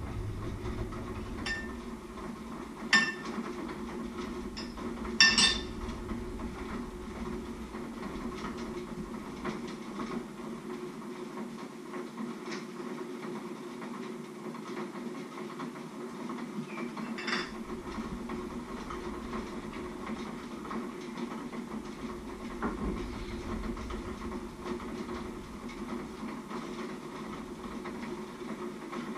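Kitchenware being handled: a few scattered clinks and knocks of pots, plates and utensils, the loudest about three and five seconds in. Under them, a steady low hum.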